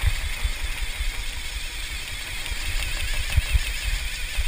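Wind buffeting the microphone in irregular low thumps over the steady rush of a 57-foot Bertram sportfishing boat's wake and engines while it runs at speed.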